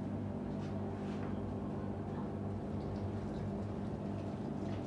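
Steady low room hum, with a few faint scattered ticks.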